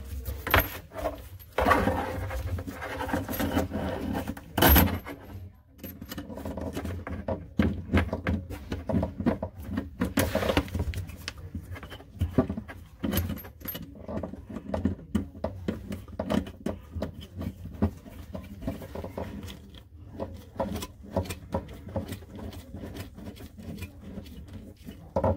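Irregular clicks, knocks and rustling of things being handled. There is a sharp knock about five seconds in and a louder scrape or rattle near ten seconds.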